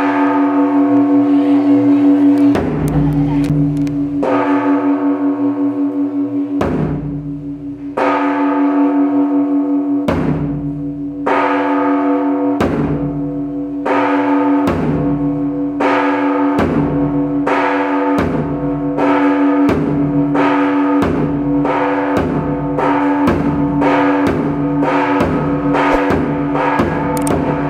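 Large bronze temple bell struck with a hanging wooden log striker, together with a big temple drum beaten with a stick. The strikes come about two seconds apart at first, then about once a second, and the bell's hum rings on between them.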